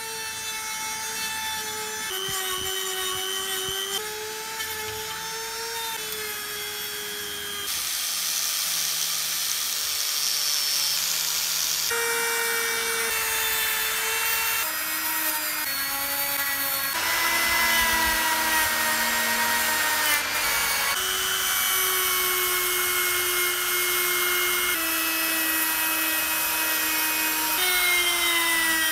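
Small high-speed rotary tool spinning a miniature wire brush against rusty steel: a steady high motor whine over a scratchy hiss as the bristles scrub rust off threaded rod and flat bracket. The whine jumps to a new pitch every few seconds and sinks near the end as the brush is pressed in.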